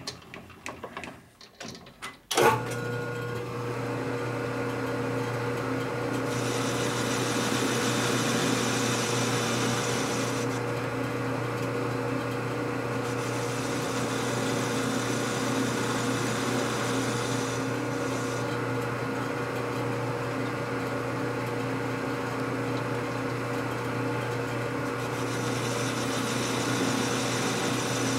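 A shop machine tool starts about two seconds in and runs steadily, trimming a steel socket thinner so it fits a panhead's head nuts. Three times a harsher, hissing cutting noise rises over the motor's hum and then drops away.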